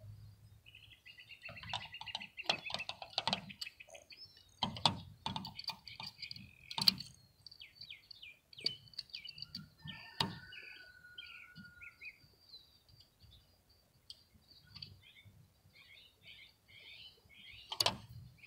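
Scattered sharp clicks and taps from hands handling the metal table plates, wires and small screws, mostly in the first seven seconds and once more near the end, with small birds chirping over and over in the background.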